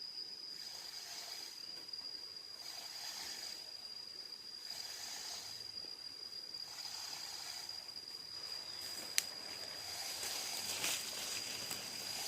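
A hand tackle being worked to pull a tree over, making a rasping noise about every two seconds over a steady high insect drone. One sharp click comes about nine seconds in.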